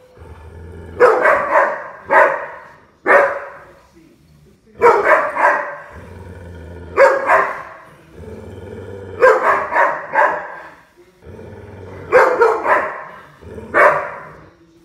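A dog barking in a play bow, an invitation to play. The barks come in short clusters of two to four about every two seconds, with low growling between the clusters.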